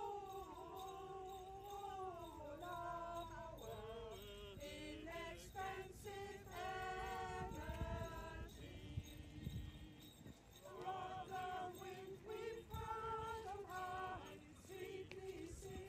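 Voices singing a slow melody, faint, with long held notes that glide between pitches, over a low background rumble.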